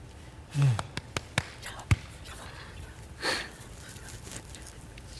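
Stifled noises from people trying to keep quiet: a short low grunt, several sharp clicks and knocks (the loudest just under two seconds in), then a quick rushing breath out a little past three seconds.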